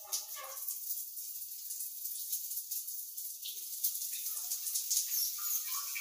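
Shower water spraying as a steady hiss, with short pitched squeaks or whines cutting in near the start and several more in the second half.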